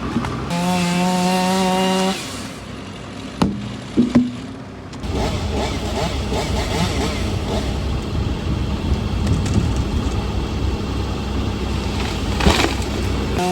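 Chainsaw held at a steady high rev, then a few sharp knocks, then a long stretch of the saw running under load, cutting into ash wood.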